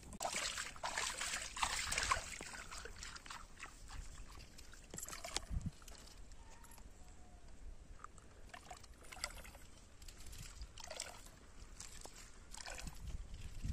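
Pond water splashing and trickling around a chain dipped from the side of a wooden boat, busiest in the first couple of seconds, then short, scattered little splashes.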